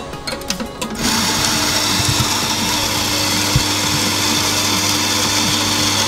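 Electric espresso grinder running steadily as it grinds coffee beans into a portafilter, with a low motor hum under a steady hiss. A few light clicks of the portafilter being seated come before the grinder starts about a second in.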